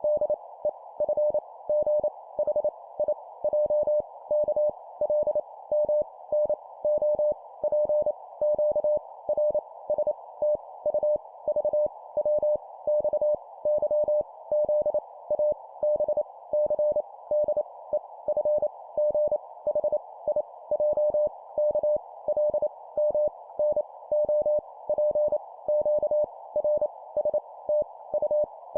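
Morse code letters sent at 25 words per minute: a single steady beep keyed on and off in quick dots and dashes, over a faint hiss.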